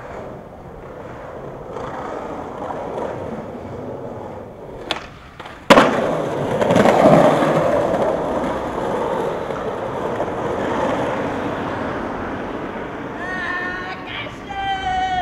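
Skateboard wheels rolling on street pavement. There is a sharp click a little before five seconds in, then a loud crack of the board hitting the ground about six seconds in, followed by louder rolling. A drawn-out, falling voice call comes near the end.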